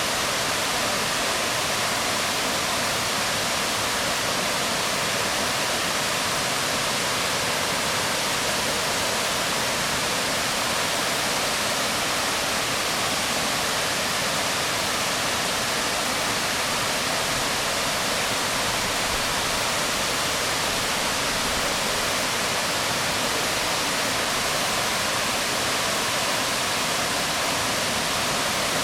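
Waterfall falling onto rocks: a steady, unbroken rush of water.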